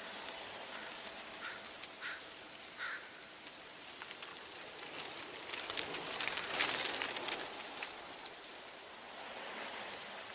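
Autumn leaves rustling in the wind, swelling into a louder crackling rush about six seconds in, then dying away. A few short high chirps in the first three seconds.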